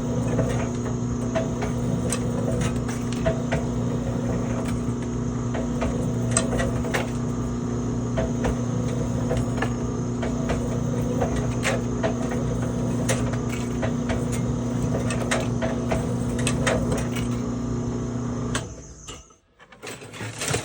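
Electric wire stripping machine running with a steady motor hum and a faint high whine, with irregular sharp clicks and ticks as solid copper wire is fed through and its insulation is split off. The sound cuts off abruptly near the end.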